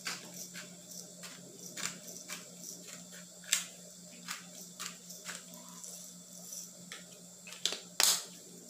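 Black pepper being shaken or ground from a small handheld container over a tray of chopped vegetables: light irregular clicks, about two a second, with a sharper knock about three and a half seconds in and another near the end.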